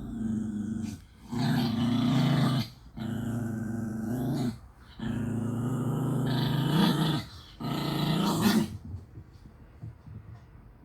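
A dog growling in long, low stretches of one to two seconds, about five in a row with short breaks between, some rising in pitch at their ends; the growling dies away about nine seconds in.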